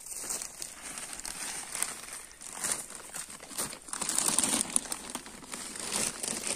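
Irregular rustling and crinkling of chopped corn silage on a plastic tarp as goats nose through the heap and eat.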